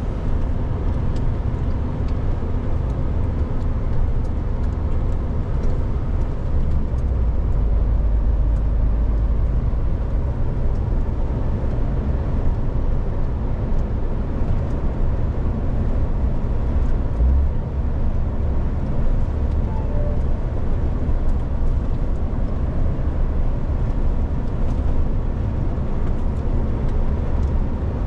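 Steady low rumble of a moving truck, engine and road noise running evenly throughout.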